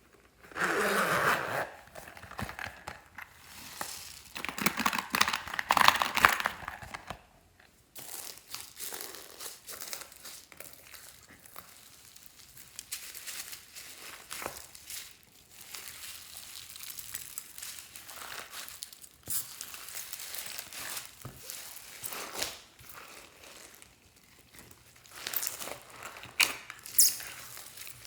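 Hands kneading, squishing and stretching glossy slime. It is loudest in two spells in the first seven seconds, then softer, with continuous handling.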